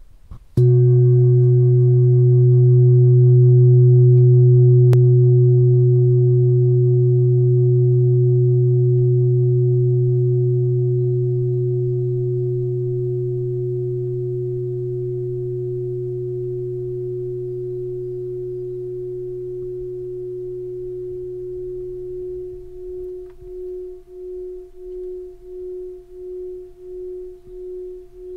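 Metal singing bowl struck once about half a second in and left to ring: a low hum under a stronger, higher tone with faint overtones above, slowly fading. Toward the end the low hum has died away and the remaining tone pulses about twice a second.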